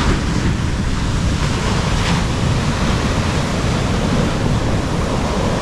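Ocean surf breaking and washing up a sandy beach, a steady rush, with wind buffeting the microphone.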